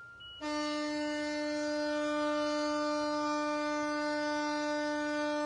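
A ship's horn sounds one long, steady blast of about five seconds that starts and stops abruptly. A faint steady siren tone runs underneath.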